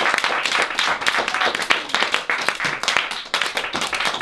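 Audience applauding, many hands clapping at once in a dense, continuous spatter.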